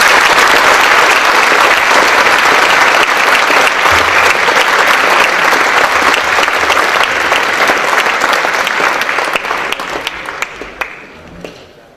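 Audience applauding, loud and steady, then fading out over the last couple of seconds.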